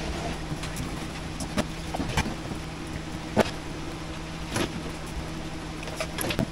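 A steady low mechanical hum, with light clicks and rustles of electrical wires being handled and bundled into braided cable sleeving.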